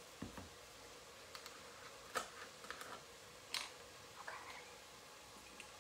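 Faint handling of a carton of chicken broth: a soft thump near the start, then a sharp click about two seconds in and another about three and a half seconds in, with a few small clicks and a light rustle between.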